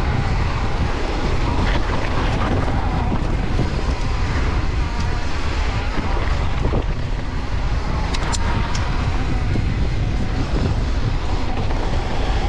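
Wind buffeting the microphone over the rumble of a Santa Cruz Bronson mountain bike's tyres on a dirt trail while riding at speed, with a few sharp clicks about eight seconds in.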